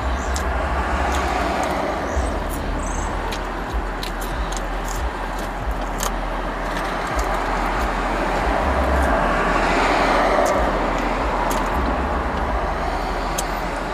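Road traffic heard from inside a parked car: a steady wash of passing vehicles over a low rumble, swelling about a second in and again near ten seconds as cars go by.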